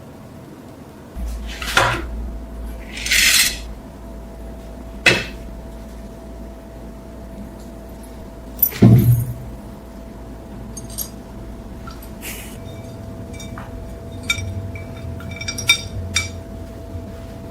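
Hard objects being handled on a workbench: a few knocks and short scrapes, a heavier knock about halfway through, then a run of small light clinks near the end, over a faint steady hum.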